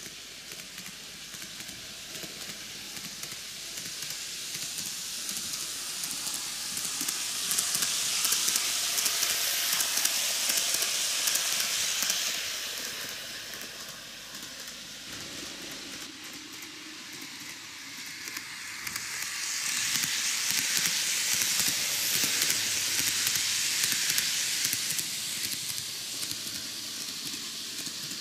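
TOMIX N-gauge model of the Kintetsu 80000 series Hinotori six-car train running on the track, its wheels rolling on the rails with a steady hiss. The hiss swells twice as the train passes close, once about a third of the way in and again a little past the middle, and dies down between passes.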